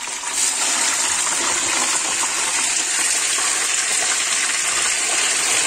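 Croaker fish pieces deep-frying in very hot oil: a loud, steady sizzle that swells up at the start and then holds.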